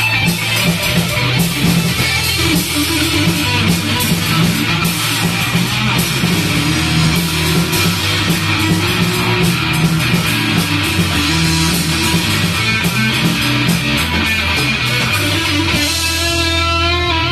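Live rock band playing loud distorted electric guitar over drums and bass during a sound check. Near the end the drums stop and a single guitar chord is left ringing out.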